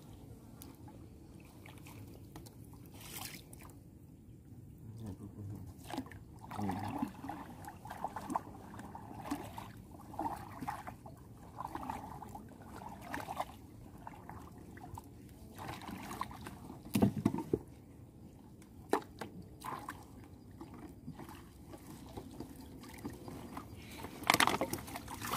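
Water sloshing and trickling, broken by scattered knocks and splashes, with louder bursts about two-thirds of the way through and again near the end.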